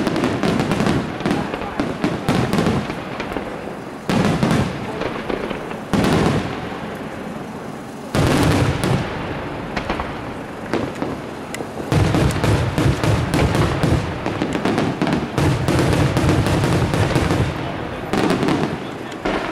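Aerial firework shells bursting in rapid succession: loud booms mixed with dense crackling, with fresh heavy volleys about four, six, eight and twelve seconds in.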